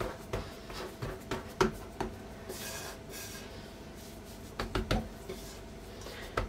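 Floury hands patting and pressing a folded sheet of starch-dusted baklava dough on a silicone pastry mat: scattered soft taps, with a brief rubbing hiss about two and a half seconds in.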